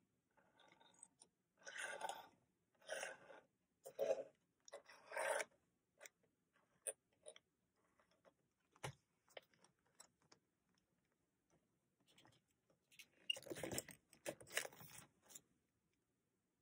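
Faint handling of stationery on a tabletop: several short crinkly rustles of packaging in the first five seconds, then scattered light clicks and taps as small items such as paper clips are set down, and another cluster of crinkly rustles a little before the end.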